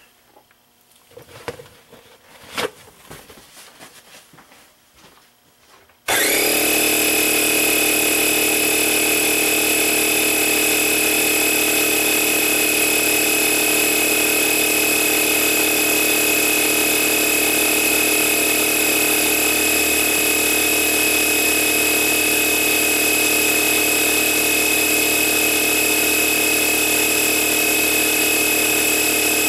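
An air compressor starts up suddenly about six seconds in and runs steadily as it supplies air to inflate a tire. Before it starts there are only faint clicks and rubbing.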